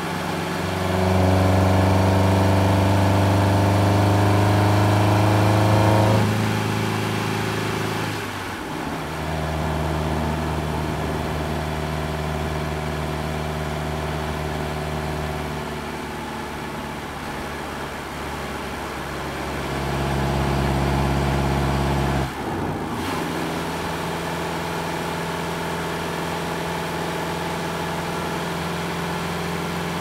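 Fiat Grande Punto 1.4's four-cylinder petrol engine heard from inside the cabin while driving. It pulls hard, rising in pitch for about five seconds, drops at a gear change, then runs at a steadier, lower note; after a brief louder stretch it falls away abruptly two-thirds of the way through and settles to a steady cruise.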